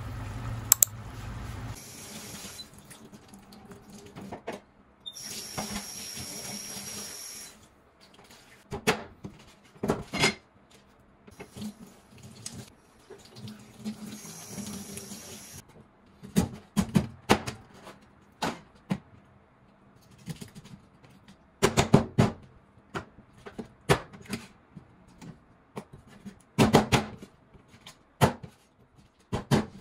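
A kitchen tap runs in three short spells into a sink. Between the spells, and more and more toward the end, there are sharp knocks and clatter as things are handled.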